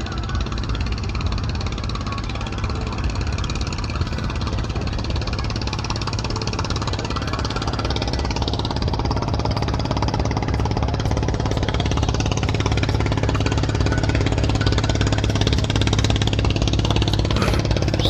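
An engine running steadily, a low even drone that grows slightly louder toward the end.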